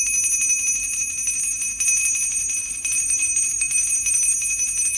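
A bell ringing rapidly and without a break, several high, clear tones over a fast run of tiny strikes.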